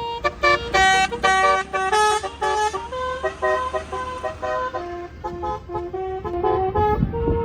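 Indonesian bus 'telolet basuri' musical horn playing a tune: a quick run of short horn notes that change pitch, loudest and busiest in the first three seconds, then softer, slower notes.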